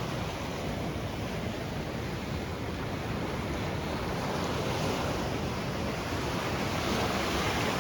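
Ocean surf washing against a rocky shore, with wind on the microphone; the wash swells gradually louder near the end.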